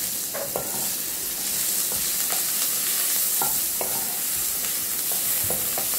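Chopped onion sizzling steadily as it fries in a little hot oil in a kadai, with short, irregular scrapes and taps of a spoon stirring it.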